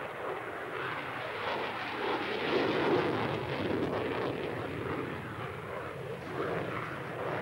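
Sukhoi Su-27 Flanker fighter jet flying a display manoeuvre overhead, its twin turbofan engines giving a continuous rushing roar that is loudest about three seconds in and eases a little after.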